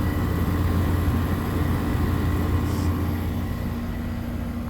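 Kenmore 8,000 BTU window air conditioner running with its compressor and fan on, blowing cold air: a steady hum over a strong low drone.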